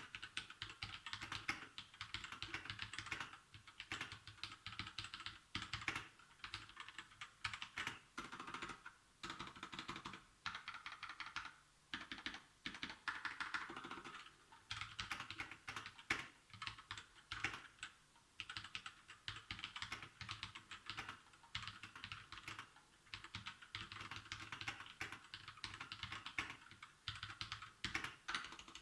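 Typing on a Royal Kludge RK61 mechanical keyboard: a fast, continuous clatter of keystrokes, broken by brief pauses every couple of seconds.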